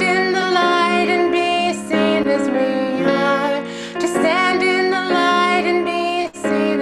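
A woman singing a slow song with piano accompaniment.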